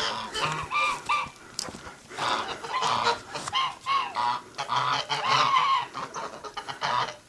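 A flock of domestic geese honking, many short overlapping calls in quick succession.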